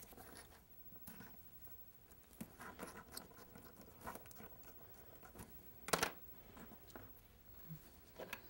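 Faint rustling and small clicks of braille paper and a raised line drawing board being handled on a desk, with one sharper click about six seconds in.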